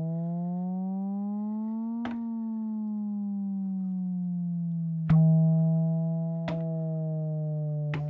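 Roland MC-909 groovebox playing a monophonic synth patch with portamento: one held tone glides slowly up in pitch for about two seconds, then glides back down. A louder new note starts about five seconds in, and a short click marks each change of note.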